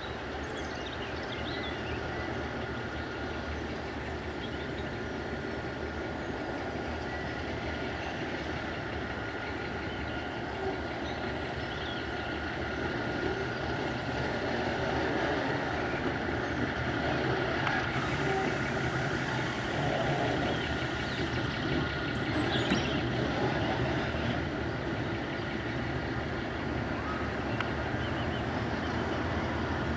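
Diesel rail vehicle's engine running steadily with a low hum and a high thin whine, growing louder about halfway through.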